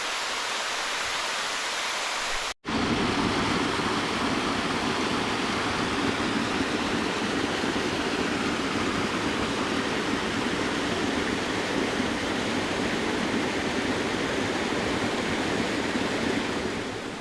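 Waterfall rushing, a steady dense wash of falling water. It cuts out for an instant about two and a half seconds in, then carries on slightly louder and fuller.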